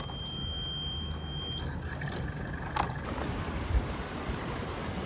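A sailboat's engine-panel alarm buzzer gives a high steady beep for about a second and a half as the ignition key is turned, then cuts off. A steady low rumble of the boat's diesel engine running continues underneath.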